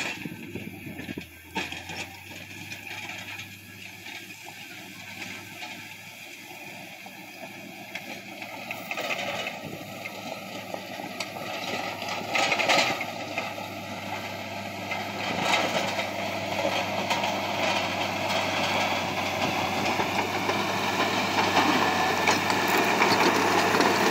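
Komatsu GD555 motor grader's diesel engine running under load while its blade scrapes and pushes the dirt road surface, growing steadily louder as the machine approaches and passes close by.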